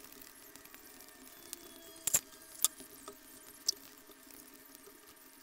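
Quiet room tone with a few light clicks and clinks, two close together about two seconds in, then one more at about two and a half seconds and another near four seconds.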